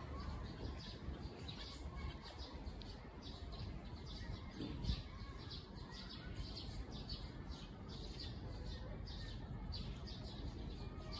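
Small birds chirping, short high notes several times a second throughout, over a low background rumble. There is one brief dull bump about five seconds in.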